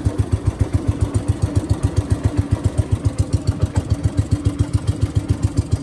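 Small long-tail boat engine running at low speed with a steady, even putter of about seven to eight beats a second.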